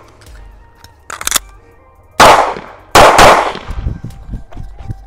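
9mm CZ Shadow 2 Compact pistol, fitted with a DPM recoil spring set, fired during a shooting drill: a single shot about two seconds in, then a quick pair of shots about a second later. A short, sharp high-pitched crack comes about a second in.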